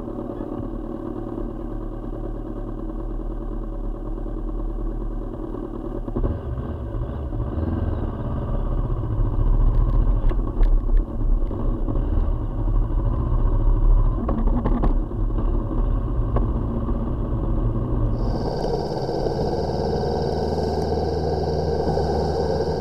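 Motorcycle engine running as the bike is ridden, with wind noise on the camera microphone and a few knocks, louder in the middle. Late on, the sound switches abruptly to a steadier hiss of wind and road noise.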